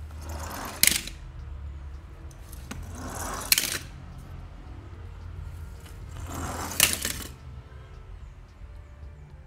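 Three times, a die-cast metal toy car rolls along a corrugated plastic board with a rushing sound that grows louder, then drops into a cardboard box of other die-cast cars with a sharp metallic clink.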